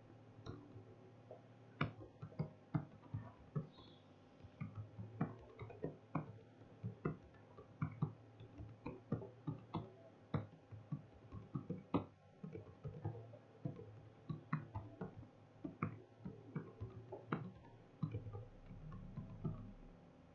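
Faint computer keyboard typing: irregular clicks and taps, several a second in quick runs with short pauses.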